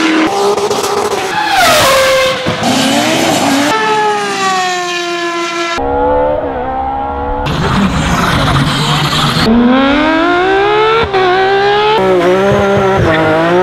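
A quick succession of short clips of rally cars at speed, their engines revving hard with the pitch climbing and falling through gear changes and throttle lifts, the sound changing abruptly at each cut.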